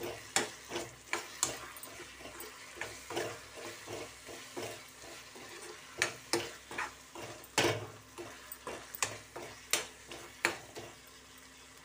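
Steel spoon scraping and knocking against a kadai while drumstick-and-tomato curry is stirred to mix in chilli powder, salt and garam masala, with a faint sizzle from the pan. The strokes come irregularly, about one or two a second, and thin out near the end.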